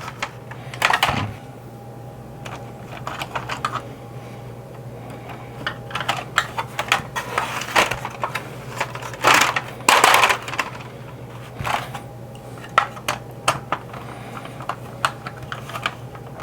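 Screws being taken out of a 1983 G.I. Joe Skystriker toy jet's plastic shell: scattered small clicks and rattles of the screwdriver, loose screws and hard plastic parts, with two short scraping rustles about nine and ten seconds in, over a faint steady hum.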